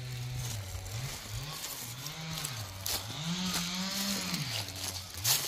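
An engine running at a distance, its pitch holding steady and then rising and falling several times as it is revved up and down. Footsteps crunch through dry grass and leaves.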